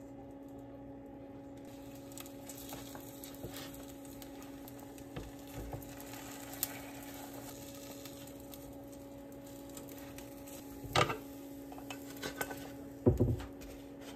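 A steady electrical hum with scattered light clicks, and two louder knocks or clatters near the end.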